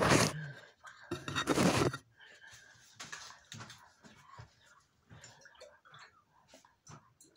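Rubbing and rustling handling noise on the phone's microphone as the phone is moved, loudest right at the start and again about a second in, followed by faint scattered clicks and small rustles.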